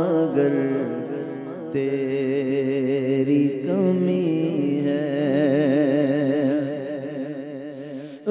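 A man singing a devotional Urdu naat into a microphone, drawing out a long melodic passage with a wide, wavering vibrato. His voice breaks off briefly about two seconds in and fades near the end.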